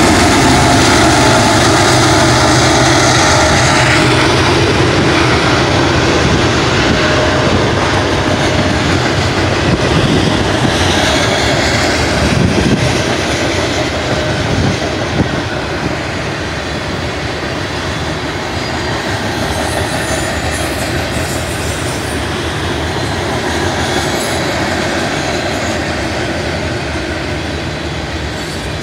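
Freight train cars rolling fast past at close range: a loud, steady rumble of steel wheels on rail with clicking over the joints and brief wheel squeals. A low diesel locomotive drone dies away over the first few seconds.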